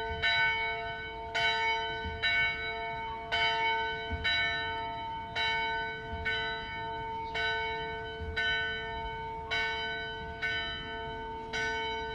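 A church bell tolling, struck about once a second, each stroke ringing on into the next over a steady hum.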